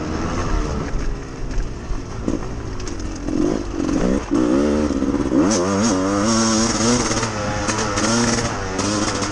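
Off-road motorcycle engine under way, running low at first and then revving up in two rising sweeps about three and five seconds in as the bike accelerates, with a few sharp knocks later on.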